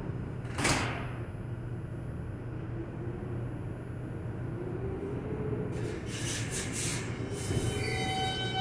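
R142-series subway train at a station: its doors shut with a single thump about a second in, then the stopped train hums steadily. A few short hisses of air follow past the middle, and near the end steady tones from the propulsion set in as it starts to pull out.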